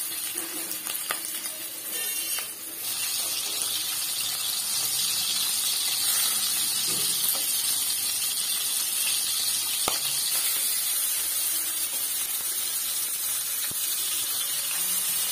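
Rohu fish steaks sizzling as they shallow-fry in hot mustard oil in a kadai: a steady hiss that grows a little louder about three seconds in. A few light clicks of a spatula against the pan.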